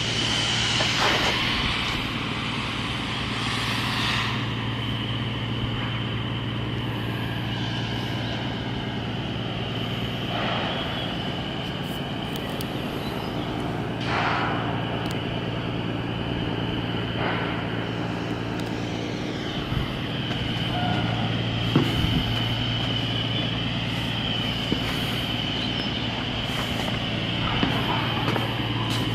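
Steady machinery hum with a constant high whine on board a cargo ship under outfitting, broken every few seconds by short hisses and a few sharp knocks.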